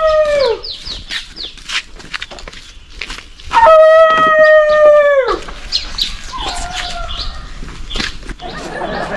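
A rooster crowing: the tail of one crow right at the start, then a long crow held for nearly two seconds that drops sharply in pitch at its end, and a shorter falling call about a second later. Light clicks and knocks sound in between.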